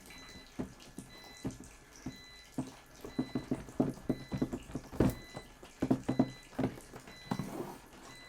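Cardboard box and packaging of a drawing tablet being opened and handled: irregular taps, knocks and light scrapes, the loudest knock about five seconds in.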